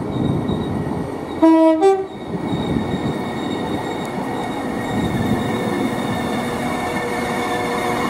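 A multiple-unit passenger train sounds a short two-tone horn blast about one and a half seconds in, a lower note then a higher one. It then runs past with a steady rumble and a thin high whine.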